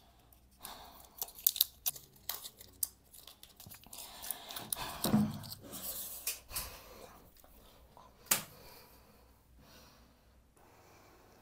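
Quiet crackling, tearing and clicking of a pill blister pack being handled as pills are pressed out through the foil. A short breath comes about five seconds in and a single sharp click about eight seconds in.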